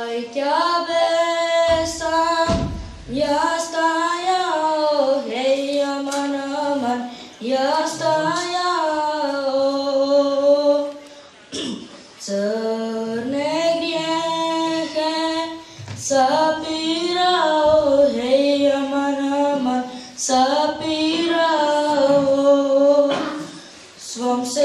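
A child's voice singing an ilahi, an Islamic devotional hymn, unaccompanied: a single melodic line with wavering, drawn-out notes in phrases of a few seconds, broken by short pauses for breath.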